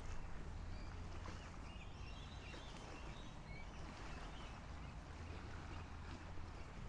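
A steady low hum with birds chirping in short, high calls.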